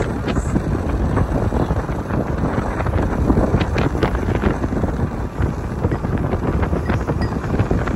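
Wind buffeting the microphone: loud, continuous rough noise with rapid crackles.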